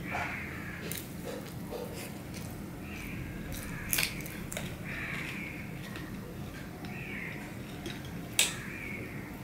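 Eating by hand from a steel plate: fingers mixing rice with fried snake gourd, and chewing, with two sharp clicks, one about four seconds in and a louder one near the end. Short calls repeat every second or two in the background over a steady low hum.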